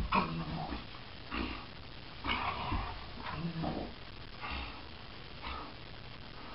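A greyhound and another dog play-wrestling, making short, irregular growls and grunts that die away about five seconds in.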